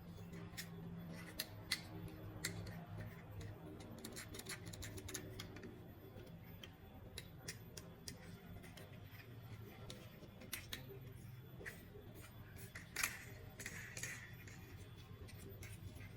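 Scattered small clicks and handling noises of a toy being taken out of its packaging, over a faint steady low hum.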